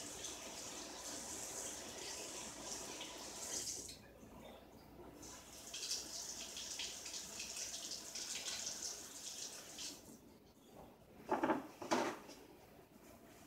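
Kitchen tap running as mustard is rinsed off a knife blade; the water shuts off about four seconds in, runs again from about six seconds and stops near ten seconds. Two knocks near the end.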